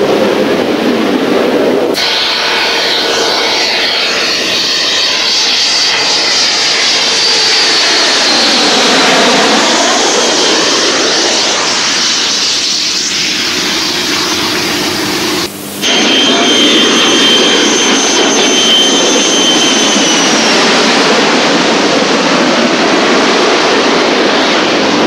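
Military jet aircraft engines: a loud whistling roar, with a whine that falls in pitch as a jet passes close. After a sudden break, a steady high jet whine returns and drops away a few seconds later, leaving the duller roar.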